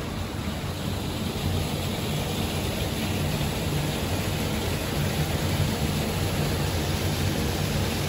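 Steady rushing noise with a low hum beneath it, unchanging throughout.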